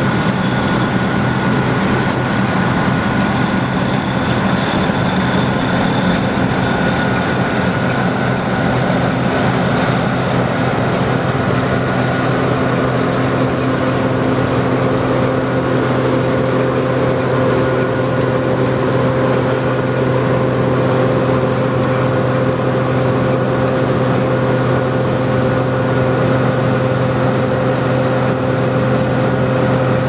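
John Deere 9550 combine running under load as it picks up and threshes swathed rye: its 8.1-litre PowerTech diesel engine and threshing machinery make a steady drone with constant humming tones. A higher steady tone joins about halfway through.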